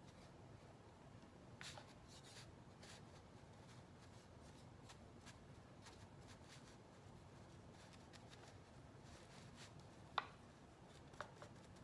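Near silence: faint, scattered dabs and strokes of a small paintbrush on the edges of a wooden sign, with a couple of light clicks near the end.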